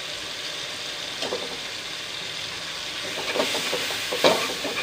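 Masala frying in a metal wok with a steady sizzle; from about three seconds in, a slotted metal spatula scrapes and stirs against the wok as gram flour is mixed into the masala.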